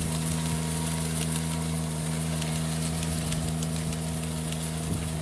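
An engine running steadily at idle, a constant even hum that does not change.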